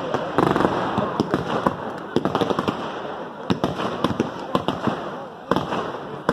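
Fireworks display going off: a rapid, irregular run of sharp pops and crackles over a continuous rushing noise, dipping briefly near the end before picking up again.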